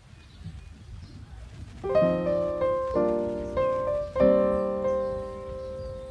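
Background piano music: a few slow chords struck about two, three and four seconds in, each ringing and fading, over a low rumbling noise.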